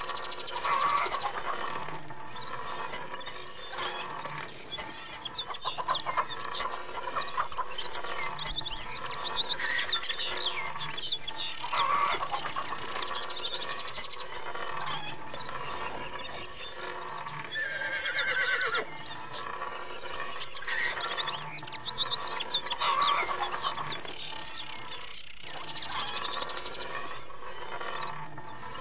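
Experimental soundtrack of dense, high, bird-like chirping and squealing glides, overlapping continuously.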